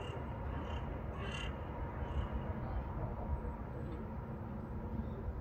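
Wind rumbling on the phone's microphone over distant city traffic, with a few short bird calls, crow-like caws, in the first couple of seconds.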